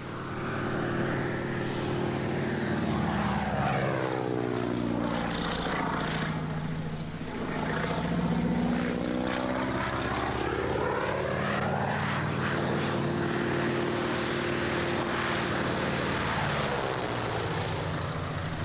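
Propeller biplane's piston engine droning as it flies low overhead. Its pitch slides down as it passes about five seconds in, rises again, and slides down once more near the end.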